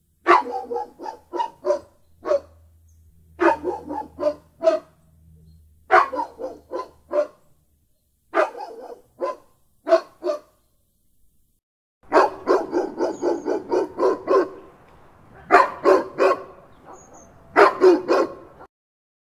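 A dog barking in runs of several quick barks, with short pauses between the runs.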